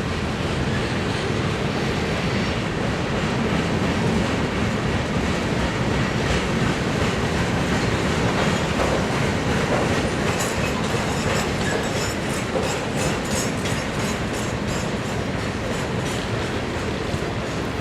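Freight train rolling past, a steady rumble of railcars with wheels clicking over rail joints. About halfway through, a quick run of sharp high clicks sets in.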